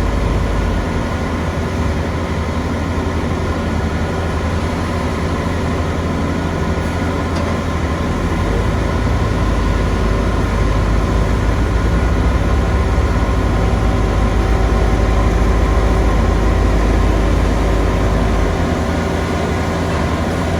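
Heavy construction machinery engine running steadily with a deep rumble, a little stronger through the middle and easing off near the end.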